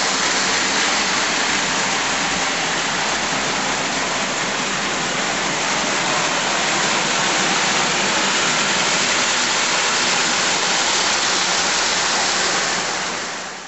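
Vintage standard gauge tinplate toy trains (ca. 1930 Boucher) running on tinplate track: a steady, even rushing roar of metal wheels rolling on the rails. It fades out near the end.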